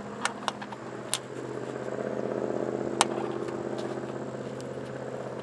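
A motor vehicle's engine swells from about a second in and slowly fades as it passes. A few sharp clicks come from the soft top's frame and snaps being handled, the loudest about three seconds in.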